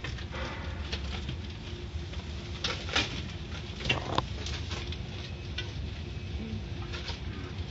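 Automatic car wash heard from inside the car: water spray pattering on the windshield over a steady low rumble of the wash machinery, with a few sharp knocks on the body about three to four seconds in.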